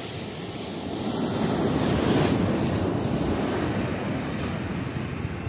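Surf foaming and washing over the rocks at low tide, one wave surging up to its loudest about two seconds in and then easing off. Wind buffets the microphone throughout.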